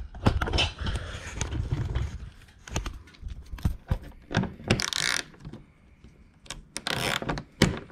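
Ratchet with a 10 mm socket working the bolts of the engine undercover's oil-change access door: uneven metal clicks and clinks, with a louder rattle about five seconds in.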